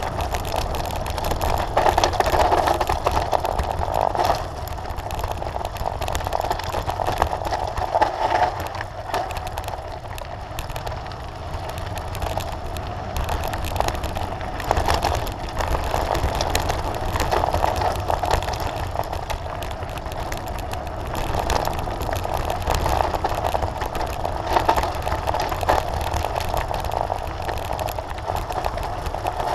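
Mountain bike descending fast on a loose gravel track: tyre noise and steady rattling and knocking over stones, with a constant low rumble of wind on the microphone.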